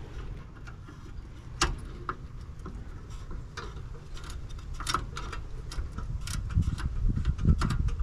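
Scattered small clicks and taps from hands fitting a small part and wire connectors onto a furnace gas valve. A low rumble builds up near the end.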